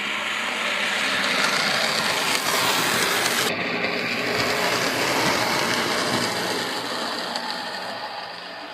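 Brass O scale Pittman/Bowser Brill streetcar model running on three-rail track: a steady whir of its motor and gears with the rumble of its wheels on the rails. The sound changes abruptly about three and a half seconds in.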